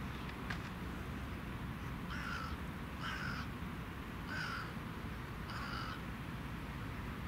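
A crow-family bird gives four harsh, separate caws about a second apart, over a steady low background rumble.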